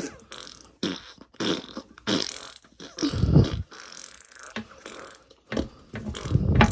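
Fart noises for a puppet on the toilet: a string of short noisy bursts, with two longer, deeper ones about three seconds in and near the end.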